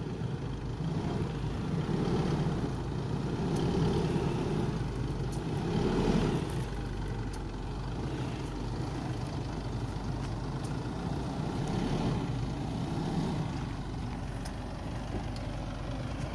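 Four-wheel drive's engine running as the vehicle drives along a dirt track, the engine note swelling and easing a few times, with faint knocks and rattles.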